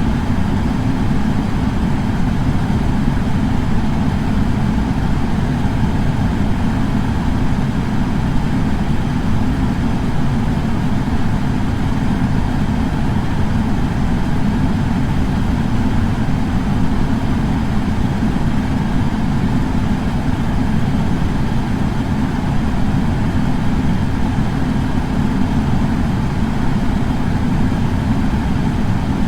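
Air purifier fan running steadily: an even, deep rush of air that stays the same throughout.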